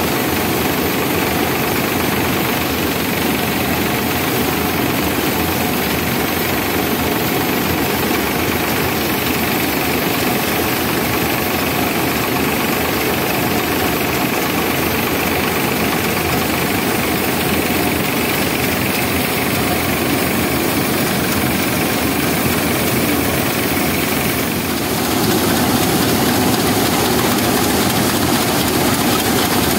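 Sonalika DI 745 tractor's diesel engine running steadily under load, driving a grain thresher whose spinning drum adds a dense rattling whir. The noise changes and grows slightly louder about 25 seconds in.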